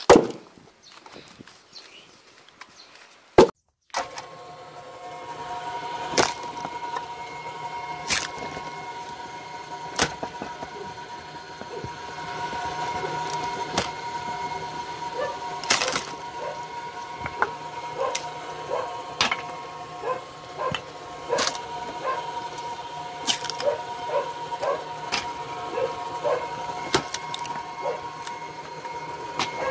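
Two heavy knocks of logs being handled, one at the start and one about three seconds in. Then a homemade electric-motor-driven log splitter runs with a steady whine while firewood is fed into it, with sharp cracks of splitting wood about every two seconds and lighter knocks in between.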